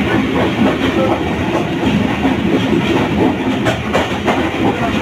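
Passenger train running along the track, heard from inside the carriage: a steady rumble with wheels clacking over the rail joints, a couple of sharper clacks in the second half.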